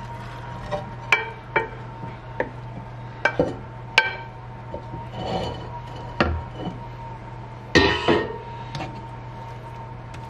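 Wooden spatula tapping and scraping against a ceramic bowl and baking dish while sticky bread dough is scraped out and spread. It makes a string of sharp clicks and knocks, with a louder scrape about eight seconds in, over a steady low hum.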